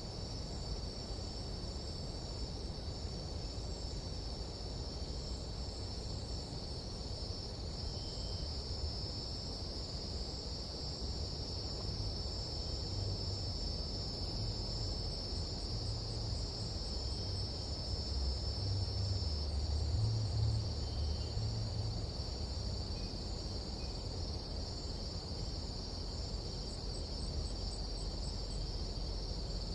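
Steady, high-pitched chorus of nighttime tropical jungle insects, cricket-like, shrilling without a break. Under it a low rumble swells about halfway through, then eases.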